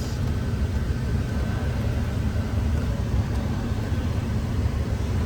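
Car engine idling steadily, a low rumble with a faint steady whine above it.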